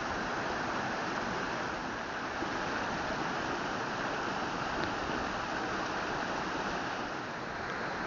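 Steady rushing noise of flowing stream water over rocks, even and unbroken.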